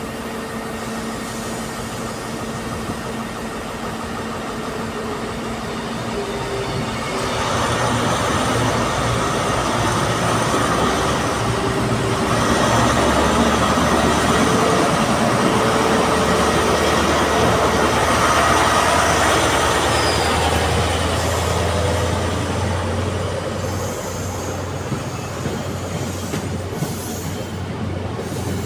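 A CrossCountry Voyager diesel multiple unit runs in along the platform line, its engines and wheels on the rails growing louder about seven seconds in and easing off after about twenty seconds. Under it is the steady hum of an idling train engine.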